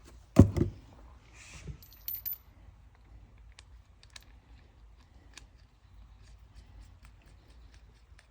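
Brake caliper parts being handled and fitted together on a workbench: one loud knock about half a second in, a short rushing noise, then a few sharp clicks and faint scattered ticks of small metal parts.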